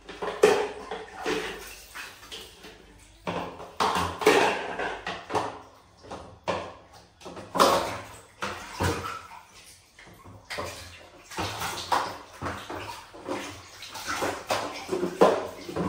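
Bath water being splashed and sloshed in irregular bursts as a monkey bathes another animal, some splashes louder than others.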